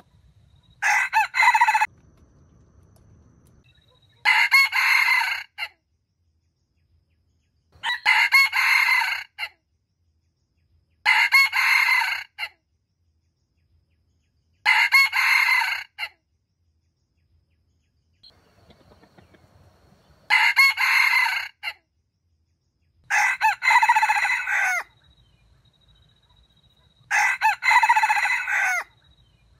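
Red junglefowl rooster crowing again and again: about eight short, loud crows, each a second or so long, coming every three to four seconds with one longer pause midway.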